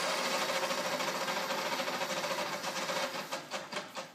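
Rockford metal lathe running with a steady whine while a boring bar cuts the bore of a cast-iron tractor hub. About three seconds in the sound fades in uneven pulses and dies away as the spindle winds down.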